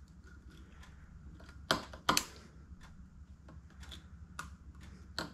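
Light metallic clicks and ticks of a thin piston ring being walked by hand into the ring groove of a Wiseco two-stroke piston. Two sharper clicks come about two seconds in, and another near the end.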